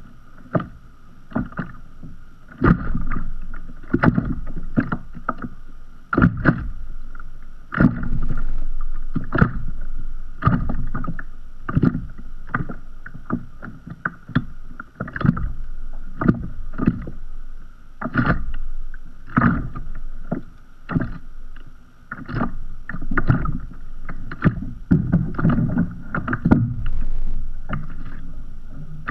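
Small sea waves lapping and slapping against a kayak's hull as it drifts, in an irregular run of short splashes about one every second.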